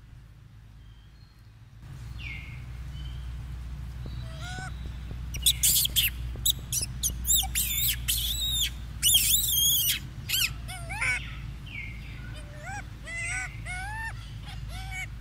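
Young macaques calling with high-pitched squeals: a dense run of loud, arched squeals in the middle, then shorter rising-and-falling calls repeated several times near the end.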